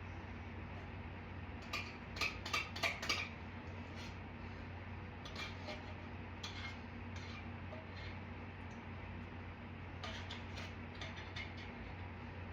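Spoon scraping and tapping against a container and bowl while scooping food out: a quick cluster of clicks about two seconds in, then scattered lighter taps and scrapes later, over a steady low hum.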